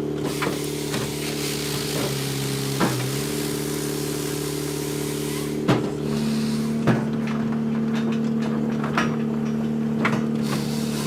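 Firewood processor's turbocharged John Deere diesel engine running steadily under hydraulic load, its pitch shifting a couple of times. Sharp knocks every one to three seconds, as logs are cut, split and dropped.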